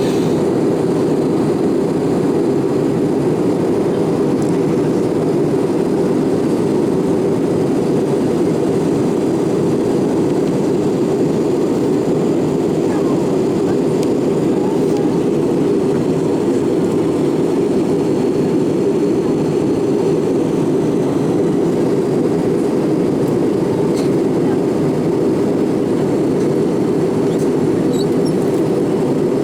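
Steady cabin noise of an Airbus A319 in flight: a constant low rush of its CFM56 engines and the airflow past the fuselage, unchanging in level.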